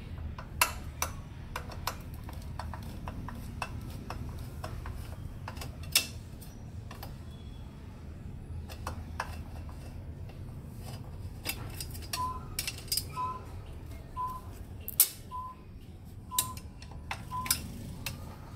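Steel screwdriver working the screws of a UPS's sheet-metal battery bracket: scattered sharp metallic clicks and clinks. In the second half come short squeaks about once a second.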